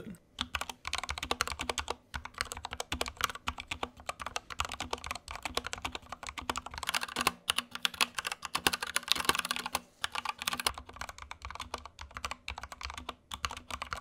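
Steady fast typing on an Anne Pro 2 60% mechanical keyboard, a dense run of key clicks. It is first fitted with Gateron Brown switches, then with lubed Tealios V2 linear switches.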